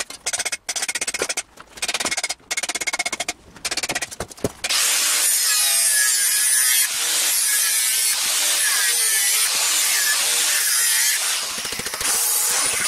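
Angle grinder grinding the edge of a formed steel armour plate: choppy short bursts at first, then continuous grinding from about five seconds in, dipping briefly near the end.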